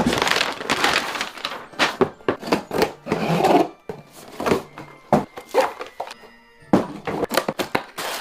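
A rapid, irregular run of sharp cracks and knocks with a dense rattling stretch a few seconds in, over background music.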